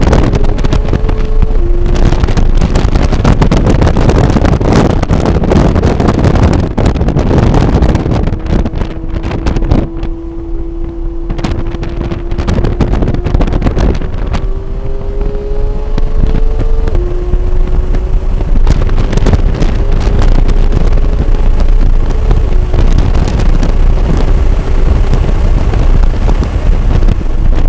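Porsche 991.1 GT3's 3.8-litre flat-six engine pulling hard on a track lap, heard from inside the cabin: its pitch climbs slowly and drops sharply at upshifts about two seconds in and about seventeen seconds in, with a quieter stretch around ten seconds in. Loud wind and road noise run under it throughout.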